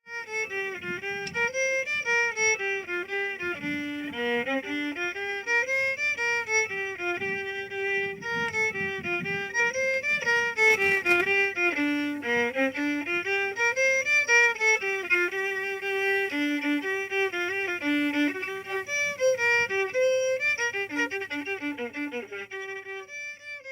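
Solo bowed string instrument playing a single melody line, note after note, with no accompaniment.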